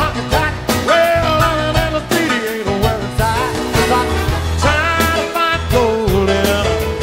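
Live rock band music from a concert recording, with a voice singing over a steady beat.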